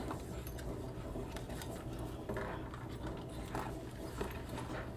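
Faint handling noises: small items and packaging being picked up and set down, with light taps and rustles over a steady low hum.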